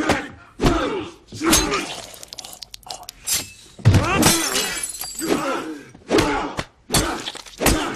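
Fight-scene sound effects: a rapid string of punch impacts with grunts and shouts, and glass shattering about four seconds in, a heavy smash followed by about a second of tinkling.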